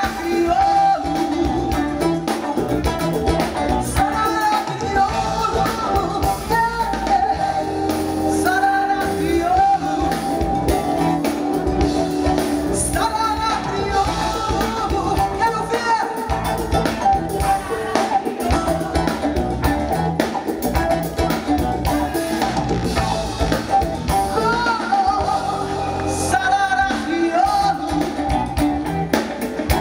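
Live band with a female lead singer: her voice over electric guitar, bass guitar, drum kit and congas, with a steady beat.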